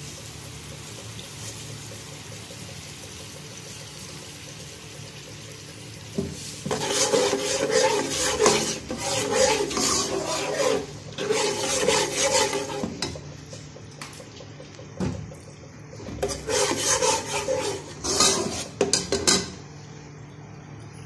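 Cumin seeds frying in hot oil in a nonstick pan, a steady sizzle. About six seconds in, and again a few seconds before the end, a spatula stirs and scrapes across the pan for several seconds at a time.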